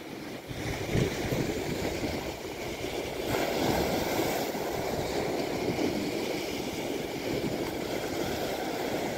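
Sea waves breaking and washing over a rocky shingle shore, with wind buffeting the microphone.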